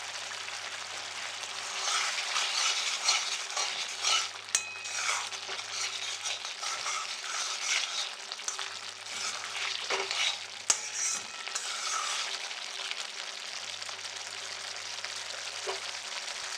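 Paneer and potato masala curry sizzling in a pan on a gas stove as a spoonful of desi ghee is stirred in, with a few sharp clicks of the stirring. The sizzle and stirring are busiest from about two seconds in until about twelve seconds in.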